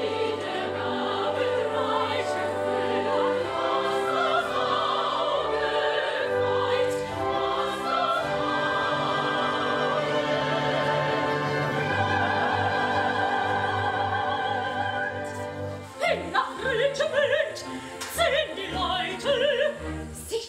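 Opera performance: singers with wide vibrato over an orchestra. About 16 seconds in the music thins out and the singing goes on in shorter phrases.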